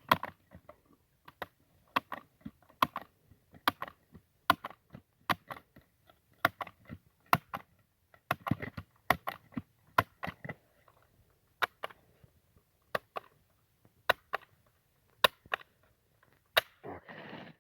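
A long run of sharp, irregular clicks and taps, about two a second, from handling a single-shot .177 air rifle during reloading.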